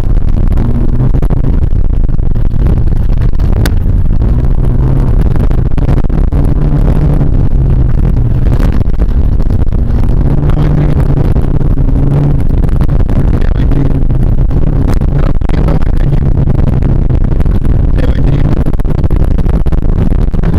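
VAZ 2114's four-cylinder engine running hard, its note rising and falling, heard from inside the cabin, with noise and scattered knocks from the car driving over a rough dirt track.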